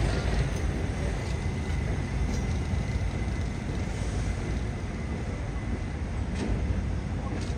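Subway train moving slowly on yard tracks: a steady low rumble with a faint high whine.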